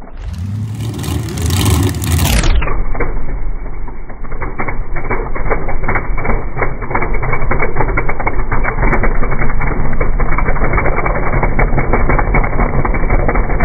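Pickup truck's engine idling close by with a fast, choppy, rhythmic beat, loud and steady. It follows a brief stretch of another engine running at the start.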